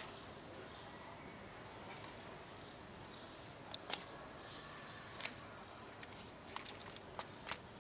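Faint outdoor background with a high, short, falling chirp repeating about twice a second, from a bird or insect. Several sharp clicks come in the second half.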